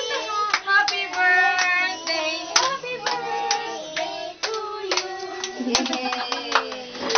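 A small group clapping along in a steady rhythm, with several voices singing in long held notes over the claps.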